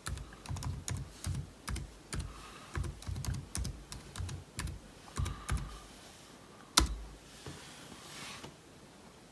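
Typing on a MacBook Air's laptop keyboard: a run of separate key clicks, a few a second, that stop about six seconds in. One louder click follows about a second later.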